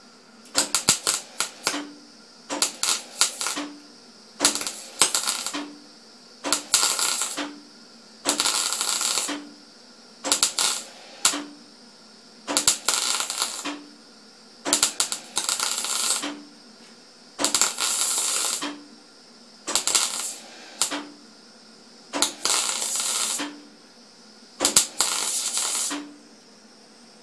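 MIG welder arc crackling in a dozen short bursts of about a second each, roughly two seconds apart, each starting with sharp pops: stitch-welding a bead on thin steel at setting A4.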